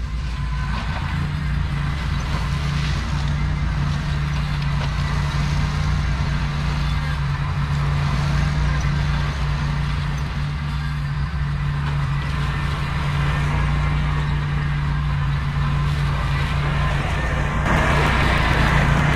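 Ventrac compact tractor's engine running steadily under work. A louder rushing noise joins near the end.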